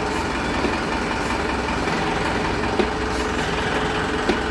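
Tata 407 truck engine running steadily, with a few sharp clicks, two of them near the middle and near the end.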